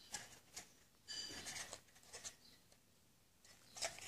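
Faint handling sounds: light rustling and a few small clicks of the tweeters' packaging being handled, with a short burst of rustling about a second in.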